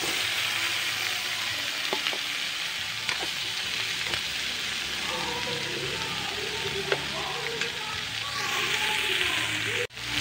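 Vegetables sizzling and hissing in hot oil in a metal wok as cubed squash and okra are added to sautéing onion, garlic and peppers, with a few sharp clicks of the spatula against the pan.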